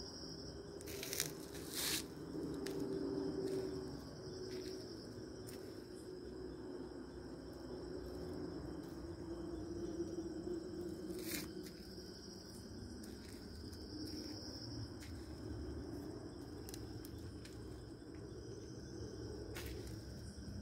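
Steady high-pitched chorus of night insects, with a low hum beneath it and a few sharp clicks, the loudest about one and two seconds in.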